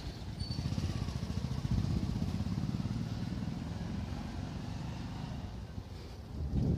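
Motorcycle engine running at low revs, a rapid low pulsing that slowly fades as the bike rides away, with a brief thump near the end.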